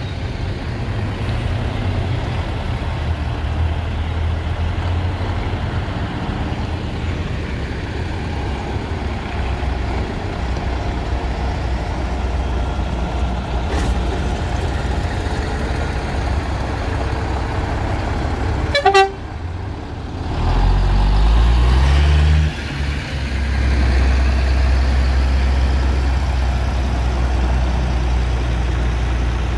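Classic lorry diesel engines running, with a short horn toot about two-thirds of the way through. Just after it, an engine revs up for about two seconds, drops off suddenly, then settles into a steady heavy rumble as a truck pulls away.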